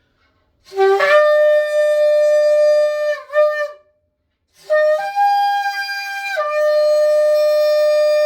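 Shofar blown in two loud blasts: the first starts low, jumps up to a held note and breaks off after about three seconds; the second begins about a second later, steps up to a higher note, then drops back to the lower note and is held.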